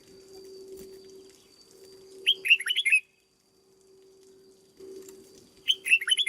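Red-whiskered bulbul singing two short phrases of rapid whistled notes, about three seconds apart, over a steady low hum.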